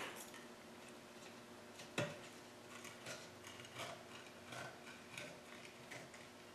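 Faint metallic clicks and scrapes of a flathead screwdriver and a thin drill bit being worked around a large piston's ring groove, twisting the piston ring along bit by bit; one sharper click about two seconds in.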